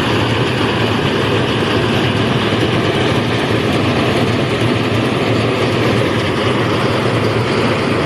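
Engine-driven rice thresher running steadily at a constant speed, loud and unchanging throughout.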